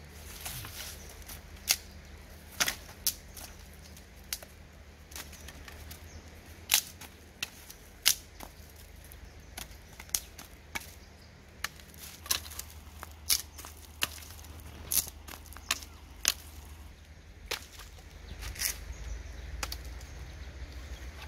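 Dry branches being snapped by hand: a string of sharp, irregular cracks, several of them loud.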